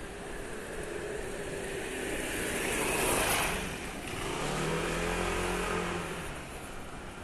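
A car passing close by on the street, its tyre and engine noise swelling to a peak about three seconds in and fading. Then an engine hum holds a steady pitch for a couple of seconds.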